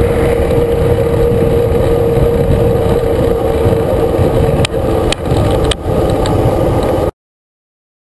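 Wind buffeting the microphone of a bicycle-mounted camera while riding, with road noise under it and a steady hum through most of it. A few sharp clicks come about five seconds in.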